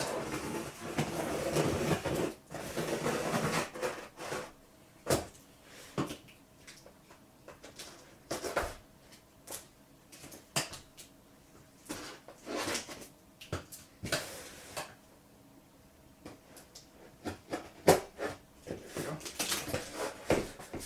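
Scissors drawn along the top of a long cardboard box, scraping and slitting the tape, followed by cardboard rustling, scraping and tapping as the box's lid is worked open.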